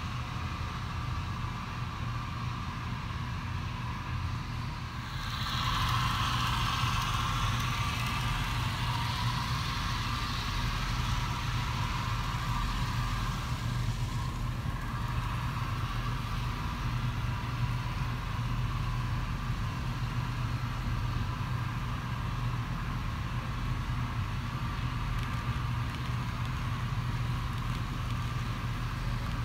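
HO scale model trains running on the layout: a steady low motor hum with the rushing clatter of small wheels on the rails, which gets louder about five seconds in.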